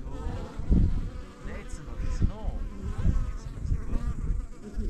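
Flies or other insects buzzing close to the microphone, the buzz rising and falling in pitch as they move about. Irregular low thumps and rumble come through underneath.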